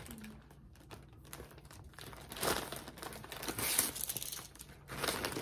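White plastic poly mailer bag crinkling in several short bursts as it is handled.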